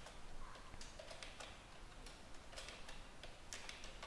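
Faint typing on a computer keyboard: a quick, irregular run of light key clicks as a terminal command is entered.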